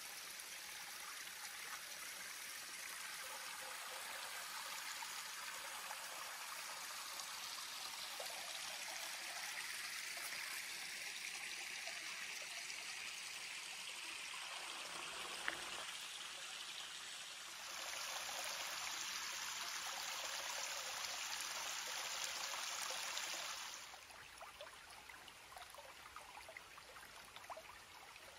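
Small, shallow stream trickling and babbling over stones and gravel. Its steady rush grows louder for several seconds about two-thirds through, then settles into a softer trickle.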